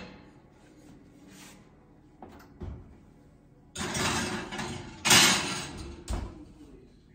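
Oven door on a gas range being opened and shut, with a baking tray slid in across the metal wire rack: two loud stretches of metal scraping and rattling after a few seconds, then a thump as the door closes near the end.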